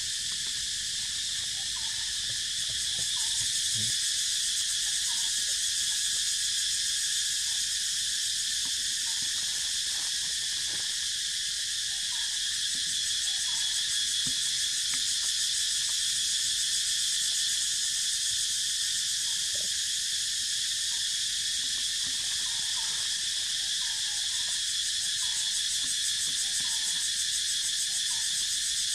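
A steady, high-pitched chorus of forest insects droning without a break, with faint short calls scattered through it.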